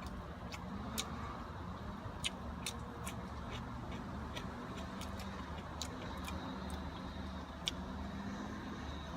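Steady low hum of an idling car, with irregular small clicks and smacks of chewing close to the microphone.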